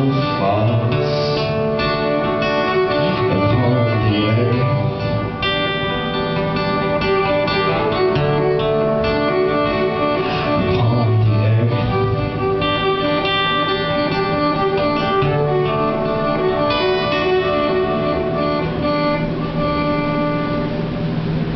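A fiddle and a strummed acoustic guitar playing an instrumental passage together live, with the fiddle sliding between some notes.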